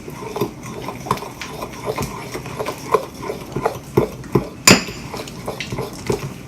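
A spoon clinking and scraping irregularly against a bowl while sticky slime is stirred, with one louder knock about two-thirds of the way through.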